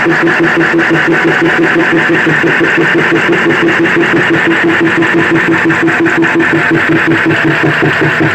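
Turbocharged diesel engine running steadily at close range: a loud, even drone with a fast regular pulse.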